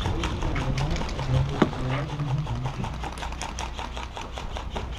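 Airsoft guns firing in a rapid run of sharp clicks, with one louder crack about one and a half seconds in, under muffled voices.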